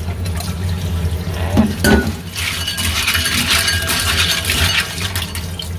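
Live clams being washed by hand, their shells clinking and rattling against each other and the dish, getting busier from about two seconds in. A steady low hum runs underneath.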